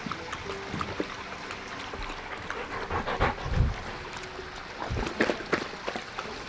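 Water trickling and lapping at a pond's edge, with small splashes and clicks as two dogs drink and step about on the stone rim, and a couple of low thumps.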